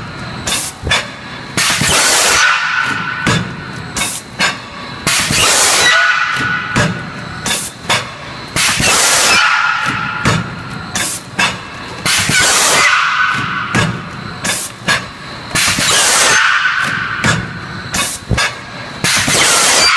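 PP food-container thermoforming machine cycling about every three and a half seconds: each cycle a long hiss of air followed by a run of sharp clicks and knocks from the press and its valves, six cycles in all.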